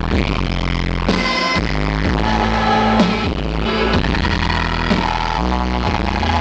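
Live indie rock band playing loud through a festival PA, with heavy sustained bass and drum hits. The sound is the poor-quality pickup of a small camcorder microphone.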